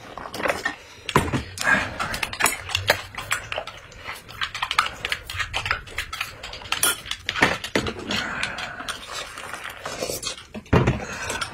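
Spoons and utensils clinking and knocking against glass mugs and dishes, with pouring and sipping of a drink from a spoon.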